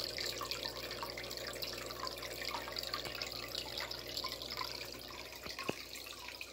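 Steady bubbling and dripping of water in an aerated goldfish tub, with many small pops. There is a single sharp knock near the end.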